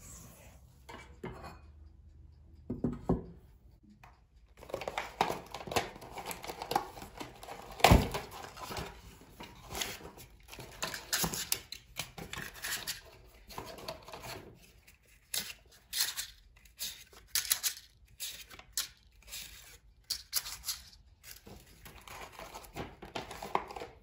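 Spatula stirring cake batter in a metal bowl at first, then paper cupcake liners crinkling and rustling as they are separated and pressed into a metal muffin tin. A sharp knock about eight seconds in is the loudest sound.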